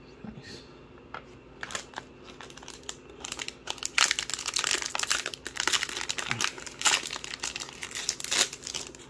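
Star Wars Destiny booster pack wrapper crinkling and tearing as it is handled and opened by hand: a few light clicks first, then dense crackling from about three seconds in.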